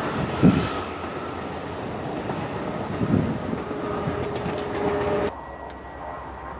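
Diesel-hauled passenger train running past on the rails, with a couple of heavy thumps from the wheels. It cuts off suddenly about five seconds in to a much quieter background with a faint steady tone.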